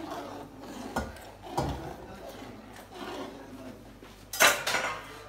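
Metal slotted spoon scraping along a wide metal pan while stirring semolina halwa in hot sugar water. There are a couple of sharp knocks about a second and a second and a half in, and a louder clatter of metal on metal near the end.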